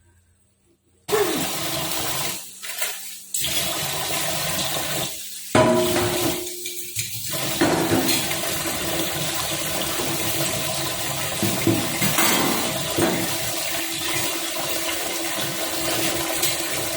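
Water gushing hard, starting suddenly about a second in and running on with a few short breaks, like a tap running full into a sink.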